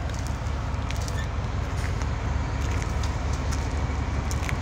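Heavy wrecker's diesel engine running, a steady low rumble.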